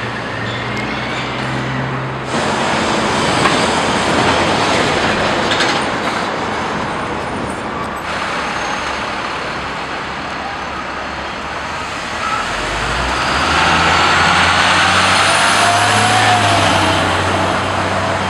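Street traffic noise: a steady wash of passing vehicles, with a large vehicle's engine drone growing louder from about two-thirds of the way through and fading near the end.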